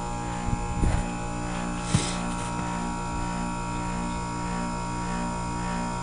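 Copeland Scroll compressor of a 2009 Amana 3-ton heat pump running in defrost mode with the outdoor fan stopped: a steady hum made of several fixed tones. A couple of brief knocks in the first two seconds.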